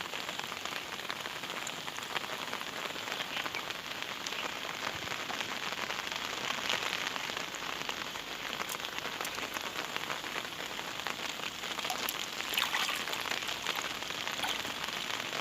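Steady rain falling, a dense, even patter of drops with fine ticks running through it.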